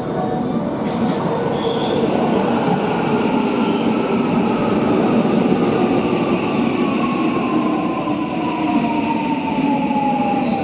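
JR West 323 series electric train pulling into the platform and slowing: a steady rumble of wheels on rail with a motor whine that falls steadily in pitch as it brakes, and a brief high squeal about seven seconds in.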